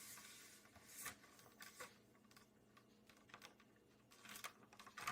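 Faint handling noise: scattered small clicks and light rustles, the clearest about a second in.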